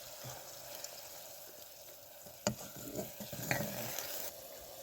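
Food frying in a pan with a steady sizzle, with a sharp click about two and a half seconds in and a few faint knocks just after.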